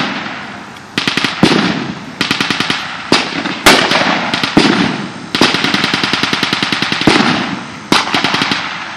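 Battle gunfire with blanks: rapid machine-gun bursts, one of them running close to two seconds, mixed with single loud rifle shots, each followed by a trailing echo.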